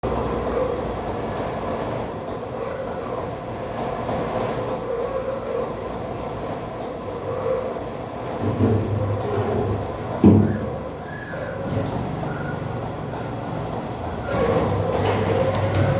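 Steel-drum lid cutting machine running, its cutter on the drum's steel giving a high-pitched metallic squeal that pulses about twice a second over a steady mechanical noise. There is a single louder thud about ten seconds in.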